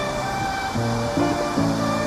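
Background music: a melody of held notes that change about every half second, over a steady hiss.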